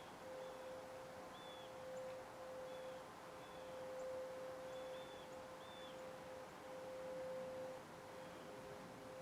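Distant outdoor warning siren sounding one steady, faint tone, wavering slightly in level.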